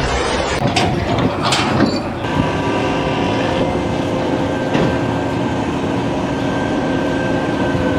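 Steady mechanical running noise with a few knocks and clatters in the first two seconds, then several steady held tones over it, stopping abruptly at the end.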